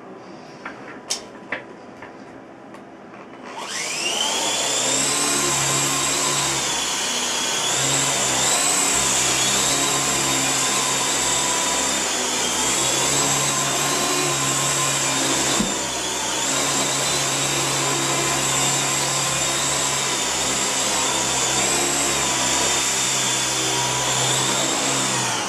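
Small indoor RC helicopter's electric motors and rotors: a few faint clicks, then a few seconds in the motors spin up with a rising whine into a steady high-pitched whir, which wavers slightly in pitch and cuts off suddenly at the end.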